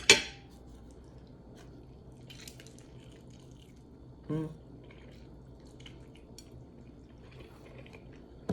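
Quiet close chewing of a bite of pizza: faint, scattered wet mouth clicks. A sharp knock sounds just at the start, and a short hummed "mm" comes about four seconds in.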